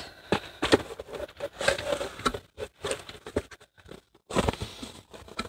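Cardboard mailer box being handled and opened: irregular scrapes, taps and rustles as the lid flap is worked open, with the crinkle-cut paper filler inside shifting.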